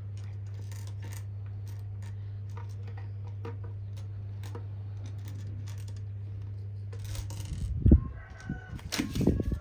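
Small plastic building bricks clicking and rattling as they are handled, over a steady low hum. Near the end there is a loud thump and clatter, with a brief high call in the background.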